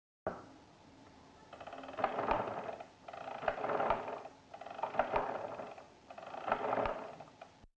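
Arithmometer mechanical calculator being worked by hand: four spells of rapid whirring, clicking gearwork, about a second and a half apart, each with sharp ticks, as its crank is turned.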